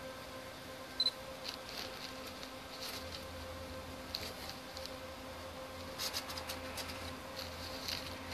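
Faint, scattered crackling of distant fireworks, in small clusters, over a steady low hum.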